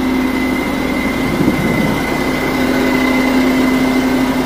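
Large truck diesel engine idling steadily, with an even low hum and a thin, steady high whine over it.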